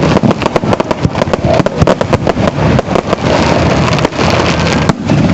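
Fireworks display going off in a rapid barrage: many sharp bangs and crackles a second over a continuous rumble.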